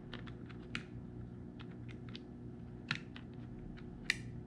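Irregular light clicks and taps of small parts being handled, as gears are set back into a gel blaster's gearbox, about eight or nine clicks spread unevenly.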